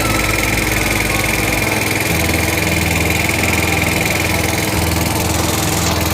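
Small boat engine running steadily, its note shifting slightly about two seconds in.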